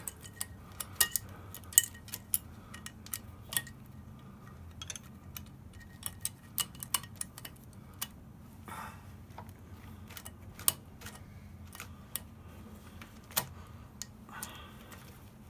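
Small metal clicks and clinks, scattered and irregular, of a wrench and throttle cable fittings being handled at a Kawasaki KLR650 carburetor while the cables are refitted.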